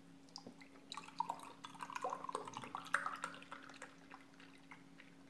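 Milk pouring from a carton into a drinking glass, splashing and gurgling for two or three seconds from about a second in.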